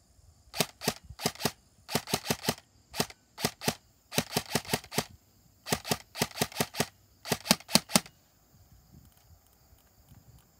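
Classic Army DE-12 M4 electric airsoft carbine firing in short bursts of a few rounds each, with a few single shots between, each shot a sharp snap. The firing stops about eight seconds in.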